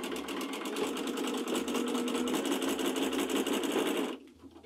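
Home sewing machine stitching a narrow zigzag at a steady, rapid pace, filling in a free-motion monogram; it stops about four seconds in.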